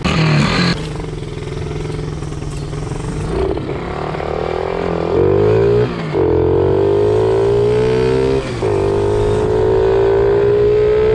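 Loud small dirt bike engine revving briefly, then accelerating hard, its note climbing in pitch. It drops and climbs again twice, at about six and eight and a half seconds in, as the bike shifts up through the gears.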